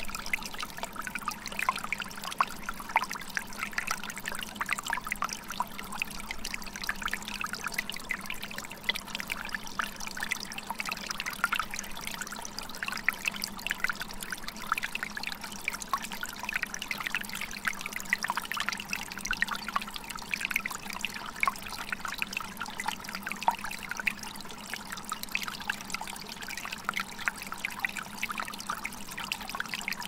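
Water trickling and splashing over rocks: a steady rush full of many small, quick splashes.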